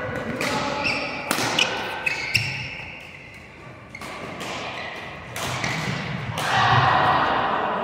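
Badminton play in a large echoing hall: several sharp racket strikes on a shuttlecock and short, high shoe squeaks on the court floor, heard mostly in the first two and a half seconds. About six and a half seconds in there is a louder, noisier stretch lasting about a second.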